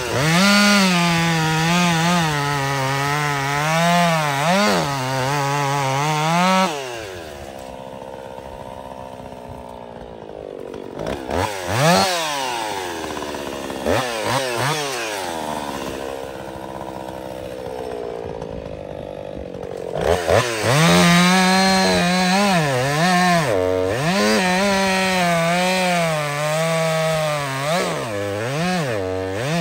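Woods-ported Jonsered 2156 two-stroke chainsaw cutting wood at high revs, its engine speed wavering under load. About seven seconds in it drops off to a lower run, with a few quick blips of the throttle, and about twenty seconds in it goes back to full revs and cuts again.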